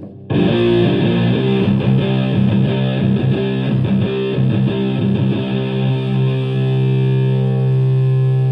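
Electric guitar through a germanium three-transistor Tone Bender MKII-style fuzz pedal into a Marshall Plexi amp, heavily fuzzed. A loud riff of quickly changing notes comes in just after the start, then a chord is held and sustains from about six seconds on.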